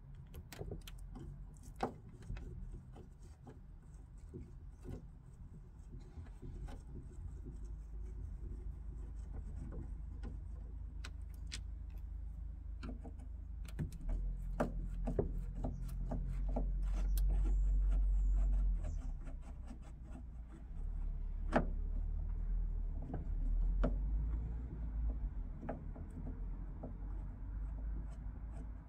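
Scattered small clicks and rubbing of a fastener being unscrewed by hand from a Fiat 126 side-window frame, over a low rumble that swells twice in the middle.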